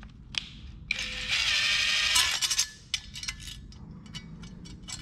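Cordless drill driver running slowly for about a second and a half, spinning a stainless steel screw through a nylock nut, with a brief spin just before it; afterwards light metallic clicks and clinks of the screw, nut and socket being handled.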